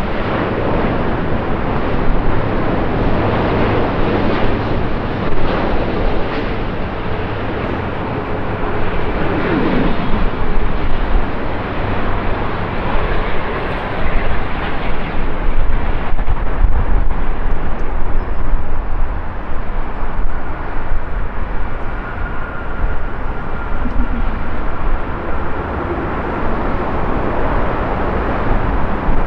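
Jet noise from an Airbus A350-900's Rolls-Royce Trent XWB engines as it lands: a loud, steady rushing rumble on approach that grows louder for a few seconds just after touchdown, with a faint steady whine over the rumble during the rollout.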